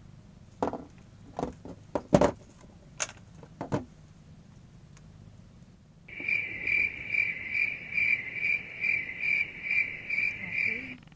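A few sharp clicks and knocks from fishing tackle being handled in a wooden boat. Then, about six seconds in, a loud, high, insect-like chirp starts, pulsing steadily about two and a half times a second, and stops just before the end.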